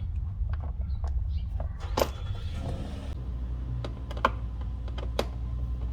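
Sharp plastic clicks and knocks while self-tapping screws are hand-driven with a screwdriver into a plastic fender flare. The loudest click comes about two seconds in, followed by about a second of scratchy rasping, with a few more clicks later, all over a steady low rumble.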